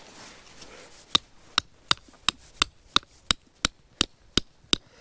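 Hammer driving a tent stake into the ground for a guy rope: a steady run of sharp, evenly spaced strikes, about three a second, starting about a second in.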